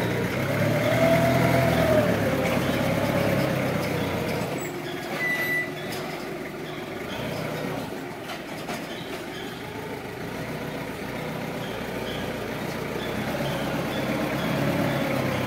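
Linde counterbalance forklift running as it drives and manoeuvres at the pallet stacks: a low engine hum with a whine that rises and falls in pitch as it revs, in the first few seconds and again near the end. A short high beep sounds about five seconds in.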